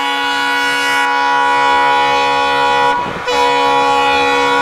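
ALCO diesel locomotive's air horn sounding a long steady blast, cut off for a moment about three seconds in and then sounding again.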